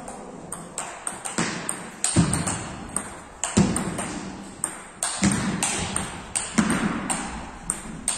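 Table tennis ball clicking sharply, over and over, against bats and table in a rally, each hit ringing on briefly in a large hall. Duller thuds fall among the clicks about every second and a half.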